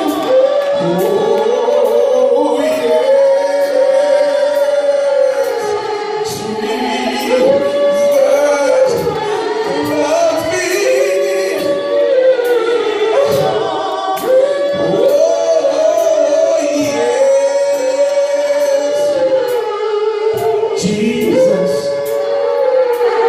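Gospel choir singing a praise-and-worship song, long held notes in phrases of a couple of seconds, over a light steady beat.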